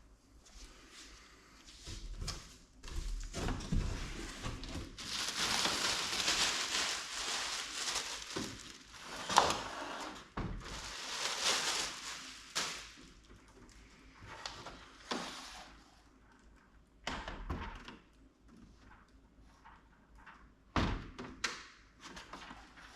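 Unboxing handling sounds of a mobile air cooler and its packaging: several seconds of rustling and scraping, with plastic clicks and knocks and a few dull thuds as parts are moved and set down.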